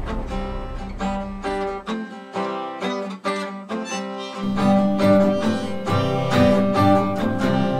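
Two guitars strumming chords in a steady rhythm, the instrumental intro of the song with no singing yet. About four and a half seconds in, the playing gets fuller, with lower notes added.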